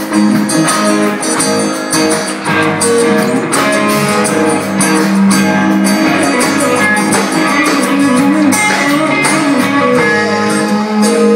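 Live rock band playing: strummed acoustic and electric guitars over bass and drums, with a steady beat of drum hits.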